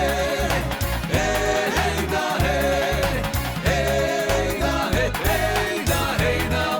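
Background music: a song with a steady, heavy bass rhythm under a bending vocal-style melody.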